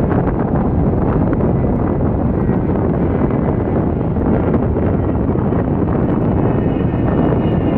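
Avro Vulcan's four Rolls-Royce Olympus jet engines giving a loud, steady rumble as it flies past, mixed with wind buffeting the microphone. A faint high whine comes in near the end.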